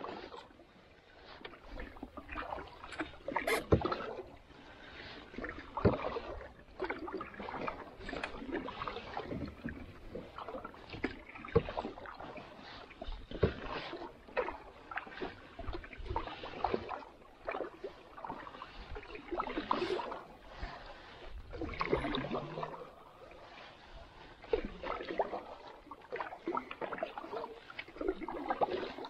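Canoe paddle strokes: the blade dipping and pulling through calm water with a splash and swirl every second or two, and a few sharp knocks among them.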